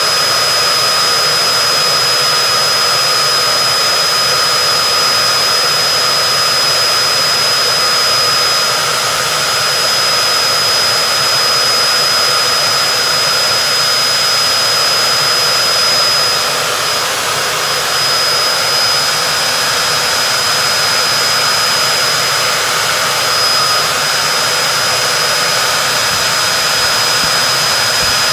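Cooling fans of a Dell PowerEdge M1000E blade chassis running loud after power-up: a steady jet-engine-like rush with a constant high whine on top.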